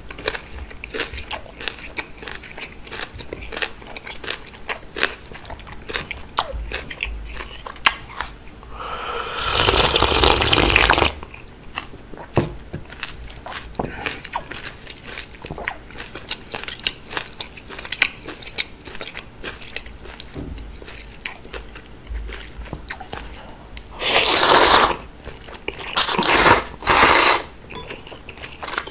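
Close-up chewing of thick cold udon noodles, with many small wet mouth clicks. A long slurp about nine seconds in, and a run of three shorter slurps of noodles near the end.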